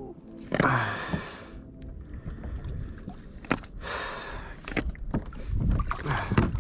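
Water splashing and sloshing against a kayak, coming in three surges about two seconds apart, with a few light knocks.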